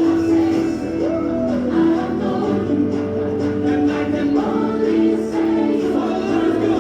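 Gospel music with a choir singing held notes over accompaniment.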